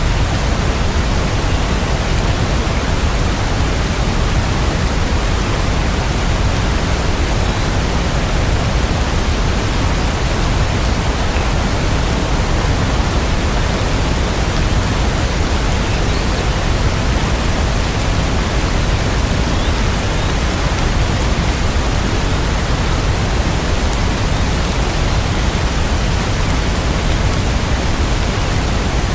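Steady rain ambience: an even, unbroken hiss with most of its weight in the low end.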